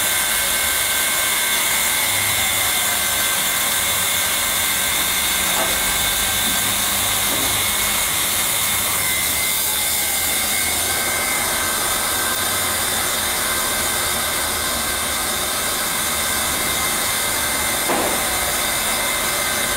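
Handheld hot-air plastic welding gun running, its blower giving a steady hiss with a faint high whine. A short knock about eighteen seconds in.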